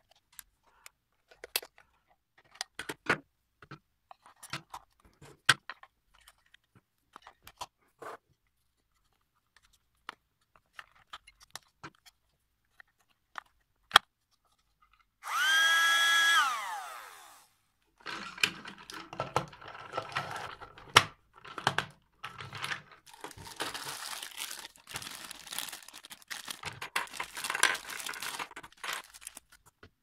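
Small plastic clicks and taps as a screwdriver works the battery cover of a Henry Mini desk vacuum. About fifteen seconds in, its small battery-powered motor is switched on and runs with a steady whine for about two seconds, then is switched off and winds down with falling pitch. After that, plastic hose and nozzle pieces clatter and rub as they are handled.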